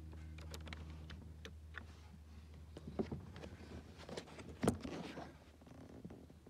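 Handling noise of multimeter test leads at a car battery: scattered sharp clicks and rustling, the loudest click about three-quarters of the way through. A steady low hum runs underneath, strongest in the first couple of seconds.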